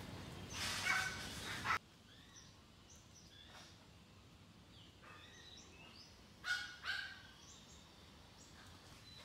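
Outdoor birdsong, small chirps scattered throughout. A louder stretch of noise in the first couple of seconds cuts off abruptly, and about six and a half seconds in come two short, louder animal calls, close together.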